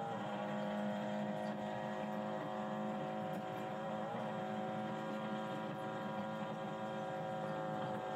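Formula 4 race car engine running hard at high revs. The pitch steps at a gear change at the very start, then holds nearly steady.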